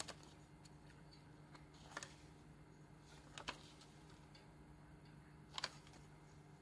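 Quiet handling of a mini binder with clear plastic rings: four short, soft ticks a second or two apart as its paper pages are turned on the rings, over a faint steady hum.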